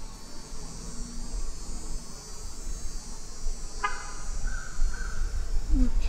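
Honeybees buzzing around an open hive, under a steady high-pitched insect chorus, with wind rumbling on the microphone. A short higher-pitched call and a brief tone sound about four seconds in.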